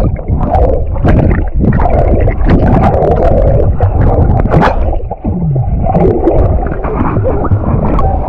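Rushing water with scattered splashes, over a low rumble of wind on the microphone.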